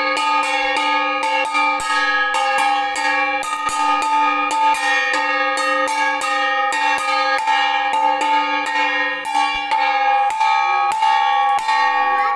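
Brass puja hand bell (ghanta) rung without pause during worship. Its clapper strikes about four times a second over a steady ringing tone.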